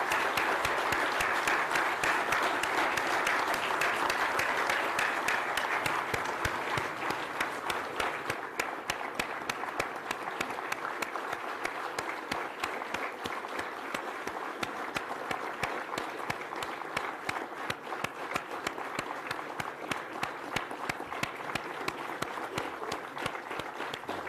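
Large audience applauding at length. The clapping is dense for the first six or seven seconds, then thins into more distinct, separate claps.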